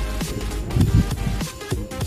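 Electronic music with a steady beat and heavy bass.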